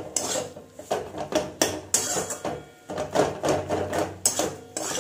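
Metal spatula scraping and stirring a dry, crumbly potato filling around a steel kadai in repeated uneven strokes, with a short lull partway through. The filling is being dry-fried until it turns crumbly.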